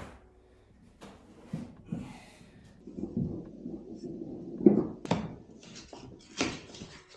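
Handling noises from wooden furniture panels during flat-pack assembly: scattered knocks, clicks and rubbing, with one louder thump a little past the middle.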